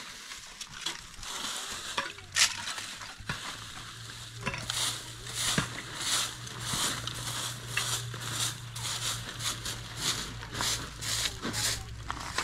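Rhythmic scraping strokes, about two a second, starting about four seconds in, over a steady low hum.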